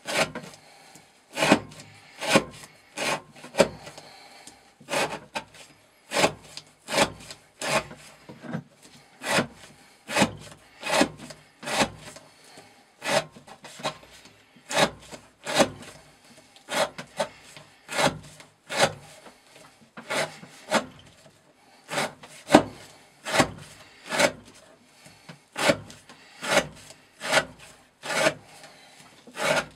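Glock FM 78 field knife's steel blade slicing through fibre rope on a wooden block, cut after cut, about three short strokes every two seconds: repeated cuts of an edge-retention test.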